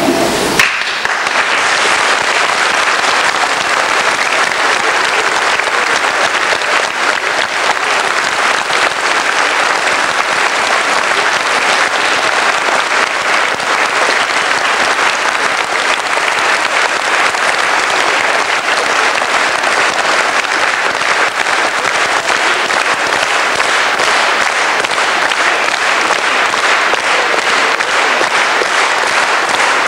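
Sustained applause from a large congregation inside a church. It begins just after the start and stays even and loud throughout.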